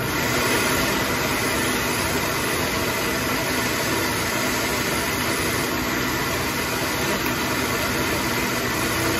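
Countertop blender motor running steadily on a jar of ice, frozen strawberries and yogurt with no liquid added. The thick mix is not blending: "it's not, like, working."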